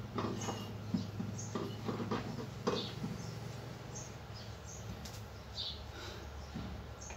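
Faint scattered small clicks and rustles of a speaker cable being handled and connected at the back of a plywood subwoofer cabinet.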